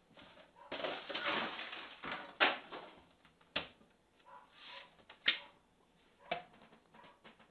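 Objects being handled on a tiled kitchen counter: a rustling, sliding stretch, then four sharp knocks and taps as a book is set down and opened.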